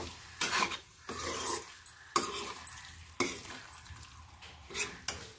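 Steel spatula stirring and scraping boiled silk cotton buds through sizzling onion-masala in a kadhai, in several separate strokes over a steady frying sizzle.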